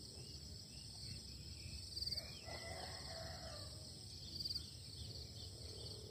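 Faint chorus of insects trilling steadily, high-pitched and pulsing every second or two, with one distant rooster crow about two seconds in.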